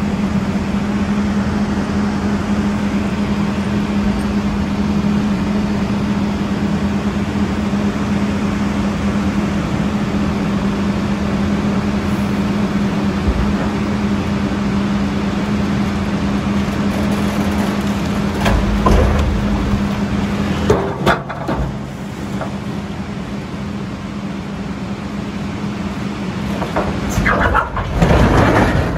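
Tipper dump truck's diesel engine running steadily as its bed tips up. About two-thirds of the way through, large boulders slide out of the bed and crash heavily onto the ground, and the steady engine tone falls away soon after. More rock tumbles out near the end.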